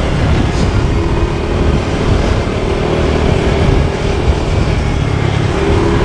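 A vehicle driving along a road: steady engine drone and road rumble.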